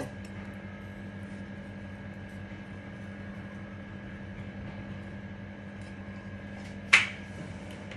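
Steady hum of a kitchen appliance or air conditioner, holding a low tone and a higher tone, with faint mouth sounds of someone eating watermelon. One short, sharp sound comes about seven seconds in.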